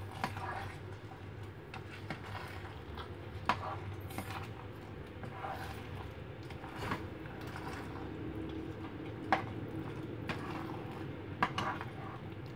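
Spoon stirring a thick, simmering pot of glutinous rice in coconut milk in a nonstick saucepan, with irregular knocks and scrapes against the pan's sides over a low steady hum.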